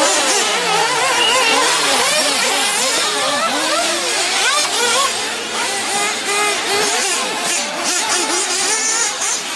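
Several radio-controlled off-road racing buggies running together, their small engines revving up and down over one another, the pitch constantly rising and falling as they accelerate and brake.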